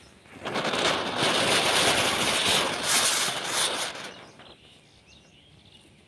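A heap of matchsticks burning: a loud fizzing, crackling hiss of match heads flaring and flames burning, lasting about four seconds, then dying away to a faint crackle.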